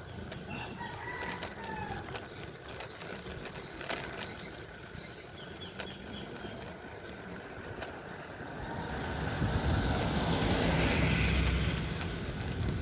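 A rooster crowing in the first couple of seconds, over the steady wind and tyre noise of a ride along a wet road. The wind rush swells to its loudest from about nine to twelve seconds in.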